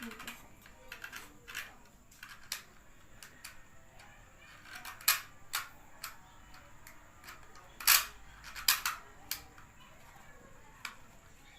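Clicks and snaps of a plastic toy pistol being handled and loaded: a scattering of small clicks, with a few louder sharp snaps about five, eight and nine seconds in.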